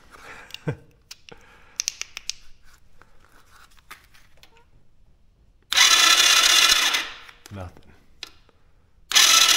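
Light clicks and handling noises, then the ATV's electric starter cranks the engine twice, each a steady whirring spin of a little over a second. The engine does not fire: no spark shows at the swapped-in spark plug.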